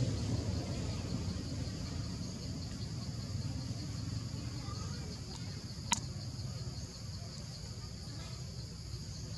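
Steady high-pitched chorus of insects over a low rumble, with one sharp click about six seconds in.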